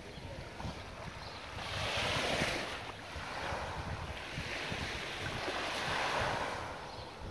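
Small sea waves breaking and washing up a sandy beach, the surf swelling twice, about two seconds in and again near six seconds. Wind buffets the microphone with a low rumble throughout.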